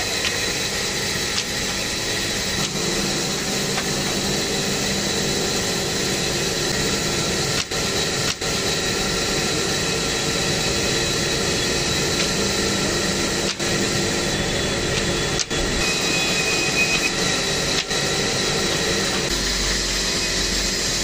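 Steady workshop machinery noise: a motor running at constant speed with a high, even whine over a hiss, broken by five brief dropouts near the middle.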